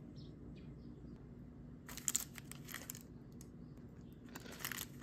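Two short bursts of crunching and paper crinkling, about two seconds apart: a garlic-butter toasted bagel being lifted from parchment paper and bitten into.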